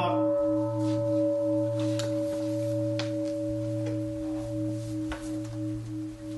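A large temple bowl bell, struck just before, ringing on and slowly fading: a deep steady hum with a slowly wavering, pulsing overtone above it. Its brighter upper partials die away in the first second or so. A few faint knocks and rustles sound over the ring.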